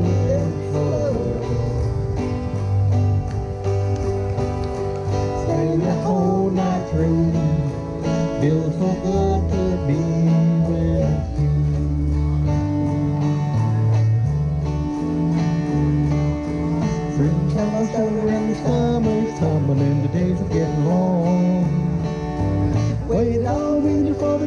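Live acoustic country band playing an instrumental passage: acoustic guitars strumming with a plucked melody line over them.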